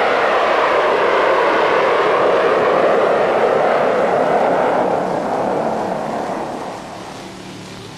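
Four turbofan engines of a McDonnell Douglas YC-15 STOL transport at takeoff power as it climbs past, a loud, steady jet noise that falls slowly in pitch and fades away over the last few seconds.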